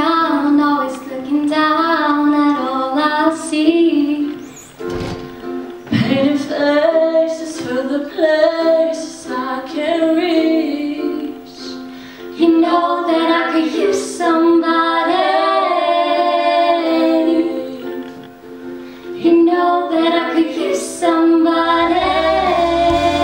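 Teenage girls singing a pop song live to a strummed ukulele, with sustained chords under their sung phrases.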